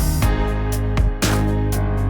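Background music: guitar with a steady beat.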